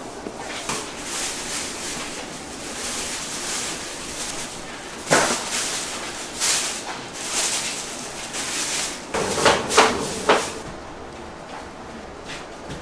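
Kitchen work noises from yakgwa making: irregular knocks, clatters and scrapes of utensils and trays, the sharpest about five seconds in and a quick run of several near ten seconds.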